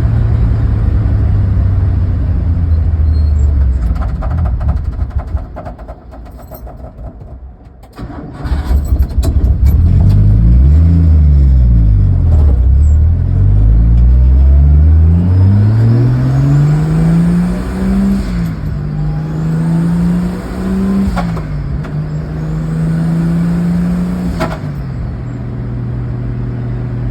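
Buick's engine running, then pulling away with its pitch climbing and dropping back three times as the transmission shifts up. Sharp taps come at intervals, from the driveshaft tapping the floorboards when the suspension jumps.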